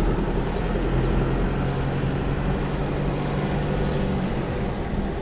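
Car driving along a town street, heard from inside the cabin: a steady low engine hum with an even road and tyre hiss.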